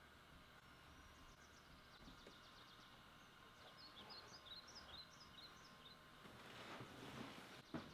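Faint birds chirping, short high chirps in a couple of quick runs, over a quiet background hiss; a single soft click near the end.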